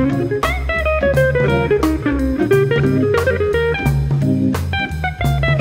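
Recorded instrumental music: an electric guitar playing the melody over bass and drums with a steady beat, in a blues-jazz style.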